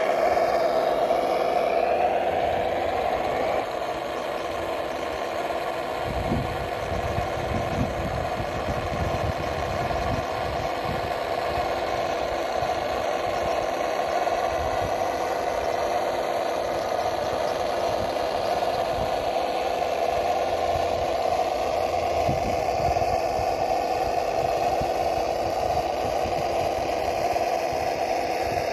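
Simulated truck engine sound played through the small speakers of the RC GAZ-66 model's Das Mikro TBS Mini sound module. The revs fall over the first few seconds, then it runs steadily at a low, even pitch.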